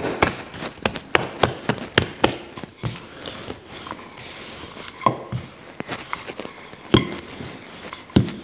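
Wooden rolling pin rolling out soft shortcrust pastry dough on a floured benchtop, with irregular light knocks and taps as the pin and hands work the dough.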